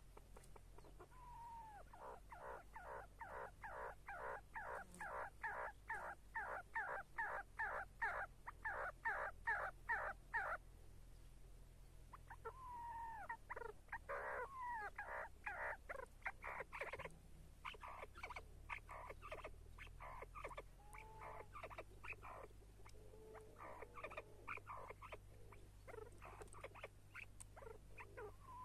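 Chukar partridge calling: long runs of rapid clucking notes, about two to three a second, breaking off near the middle and starting again with more uneven chuck calls.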